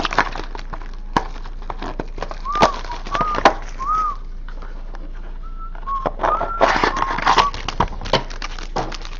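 Handling noise: a run of sharp crackles and clicks, with a few short, squeaky, arched chirps in two groups, about a third of the way in and again past the middle.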